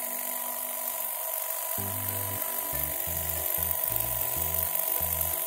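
The electric motor of a Beaulieu 4008 ZM II Super 8 camera whirring steadily with a thin high whine, over background music with low, separate notes.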